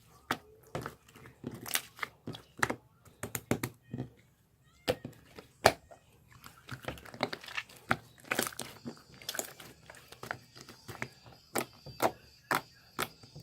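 Irregular series of sharp clicks and taps, a few a second, with a faint steady high-pitched tone joining about eight seconds in.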